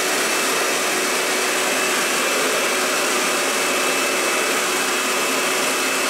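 Wagner Control Pro 250M airless paint sprayer running, its pump forcing a thin jet of water out of the bare hose end into a plastic bucket: flushing the paint out of the sprayer to clean it. A steady hiss and motor noise with a faint high whine.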